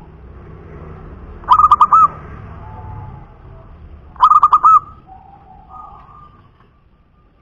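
Zebra dove (perkutut) cooing: two loud bursts of rapid, clipped coo notes, about five to a burst and roughly two and a half seconds apart, with fainter, longer notes in between.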